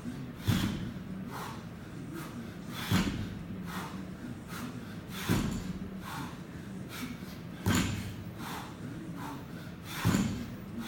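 Bumper plates of a 90 kg barbell thudding down on the floor mat as each deadlift rep is lowered, five times about every two and a half seconds, with heavy breathing between the reps.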